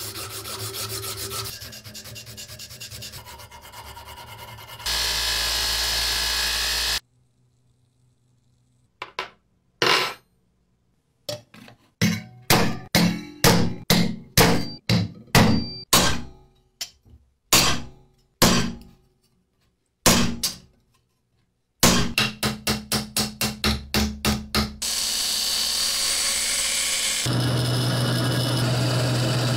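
Metal being hand-sanded with abrasive paper, a scratchy rubbing. Then a long run of sharp metal-on-metal strikes that ring, speeding up to a quick series of blows. Near the end comes a steady machine noise with a low hum as a drill bit cuts through sheet steel.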